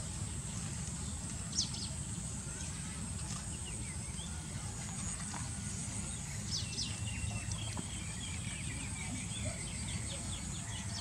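Outdoor ambience: a few bird chirps and a short trill over a steady high insect drone and a low rumble.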